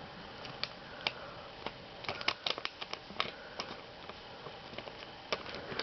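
A square of origami paper being folded and creased by hand: scattered crisp crinkles and taps, busiest from about two seconds in.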